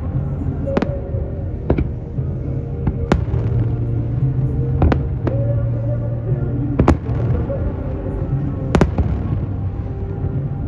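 Aerial fireworks shells bursting: about six sharp bangs, one every second or two, over a steady low rumble of background music.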